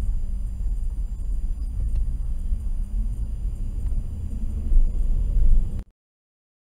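Steady low rumble of road and engine noise inside a moving car's cabin, picked up by a dashcam microphone; it cuts off abruptly near the end.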